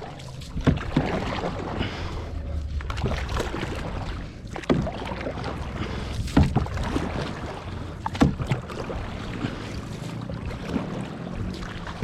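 A small boat being paddled or poled across a pond: water rushing and splashing, with a knock or splash of a stroke every second or two.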